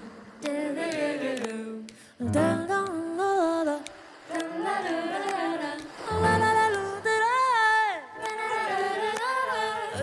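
Women singing a run of short wordless, hummed phrases into microphones, about two seconds each, with little instrumental backing. One phrase ends in a long falling slide near the end.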